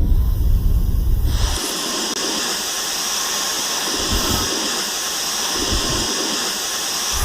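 Dyson cordless vacuum running: a steady airy hiss with a faint high whine. It sets in about a second and a half in, after a low rumble.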